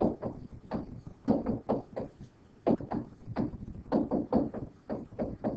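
Stylus or pen tapping and scratching on a writing surface while handwriting numbers and letters, a string of irregular sharp clicks about three to four a second.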